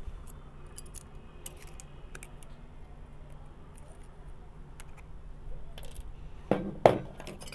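Pliers gripping and bending the steel casing of a cylindrical lithium-ion cell, with small metallic clicks and scrapes, then two loud metal knocks about half a second apart near the end.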